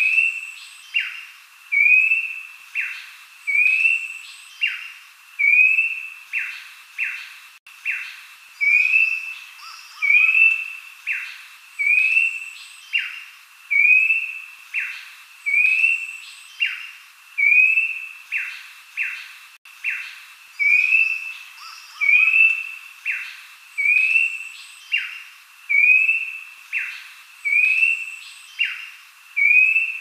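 Abbott's babbler (pelanduk semak) singing: a short whistled phrase, one upslurred note followed by two or three quick down-slurred notes, repeated about once a second. A few faint high chirps sit behind it.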